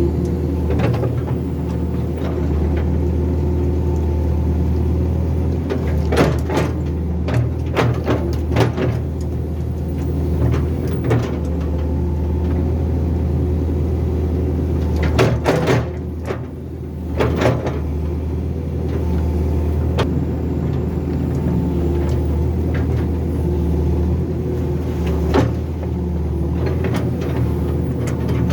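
Excavator's diesel engine running steadily under load, with sharp knocks and clanks now and then, several in a cluster about a third of the way in and again around the middle.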